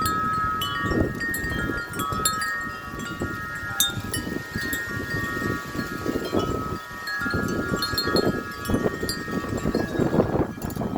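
Wind chimes ringing continuously in strong wind, several overlapping tones struck again and again. Underneath is a gusty rumble of wind rising and falling.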